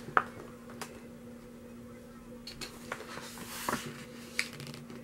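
Pages of a glossy photobook being handled and turned: a sharp tap just after the start, a papery swish about three to four seconds in, and a few light clicks, over a steady low hum.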